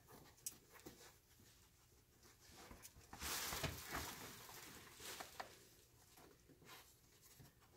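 Faint rustling and small knocks as a dog searches among stored bags and boxes, with one louder rustle lasting about a second a little after three seconds in.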